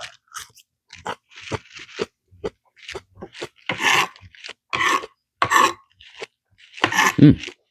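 A person biting into and chewing a raw chocolate Gator Jigsaw superhot chili pepper, a run of short, irregular crunches close to the microphone.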